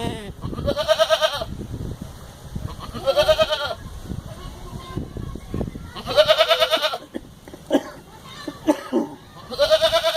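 Rajanpuri goats bleating: four long, wavering bleats about three seconds apart.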